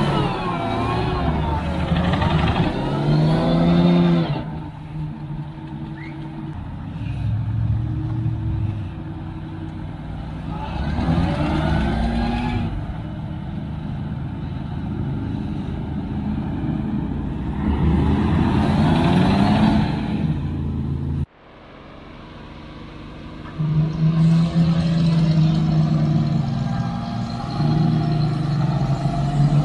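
Unimog truck engine revving up and falling back in repeated surges, working under load to tow a stuck 7-ton Unimog out of deep sand. About two-thirds of the way through the sound cuts off abruptly, then an engine runs on more steadily at a lower pitch.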